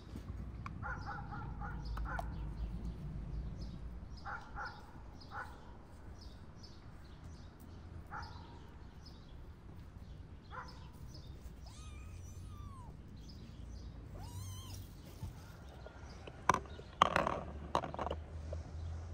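Animal calls, short and pitched, coming every few seconds, over fast faint high ticking. A few sharp knocks near the end.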